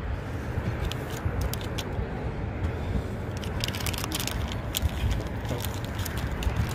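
Wind buffeting the microphone in a steady low rumble, with many irregular sharp clicks and rattles over it.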